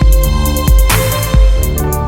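Electronic music with a heavy bass beat.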